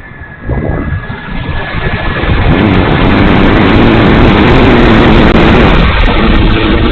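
Whine of the E-flite Timber RC plane's electric motor, a steady high tone that is soon swamped by a loud rushing rumble. The rumble rises from about half a second in and then holds steady.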